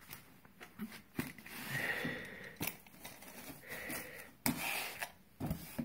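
Polystyrene foam packing insert rubbing and squeaking as a round magnet with a steel eyebolt is handled in it, in two stretches, with a few sharp clicks and knocks of the metal between them.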